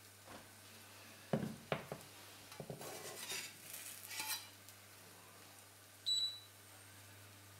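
A metal spatula knocking against a frying pan, then scraping around the pan as it lifts the edge of a thin crêpe. About six seconds in, a single short beep from the Siemens induction hob's touch control as the power setting is raised.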